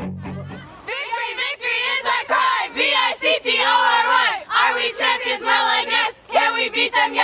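A group of young athletes shouting a team cheer together, many voices at once in several loud bursts with short breaks between them, starting about a second in as guitar music fades out.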